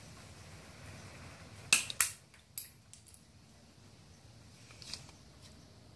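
Hand miter shear snipping through plastic fabric-wall track at a 45-degree angle: three sharp snaps in quick succession about two seconds in, and a faint click near the end.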